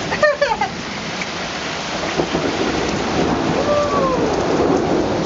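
Heavy tropical-storm rain pouring down, a dense, steady hiss, with a brief shout near the start.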